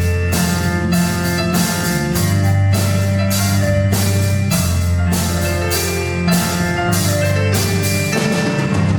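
Live band music: a drum kit keeping a steady beat under sustained low bass notes and chords.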